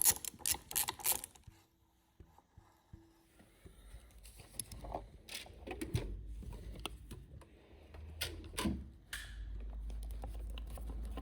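Light clicking and tapping of hands and small tools on the motorcycle's handlebar controls: a quick run of sharp clicks at the start, then scattered small knocks, with a low steady rumble in the last couple of seconds.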